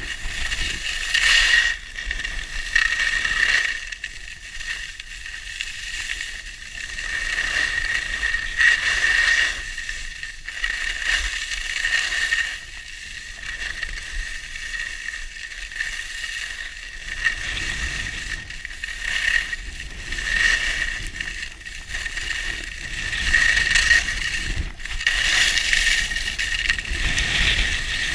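Skis sliding and scraping over firm groomed snow, a hiss that swells and fades with each turn, over a low wind rumble on the microphone.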